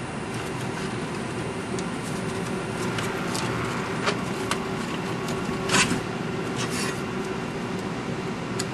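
Steady hum of a powered-up slot machine cabinet, with scattered light clicks and a short scraping rasp about six seconds in as the machine is handled.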